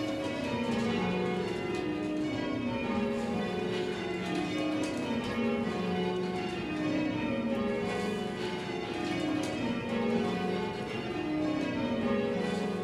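Cathedral tower bells rung full circle in change ringing, striking one after another from the highest to the lowest bell. The same descending run repeats every couple of seconds, as in rounds just after the ringing has started.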